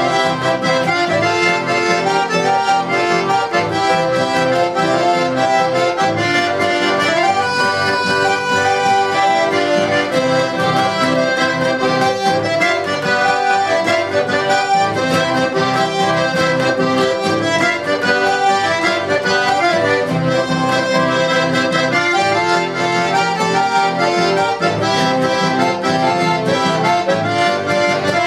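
Button accordion playing a lively chamamé melody in quick, shifting notes, with an acoustic guitar strumming the rhythm underneath.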